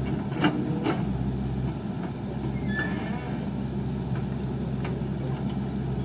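Backhoe loader's diesel engine running steadily as the backhoe arm swings down and lowers its bucket into the trench, with two sharp metallic knocks about half a second and one second in.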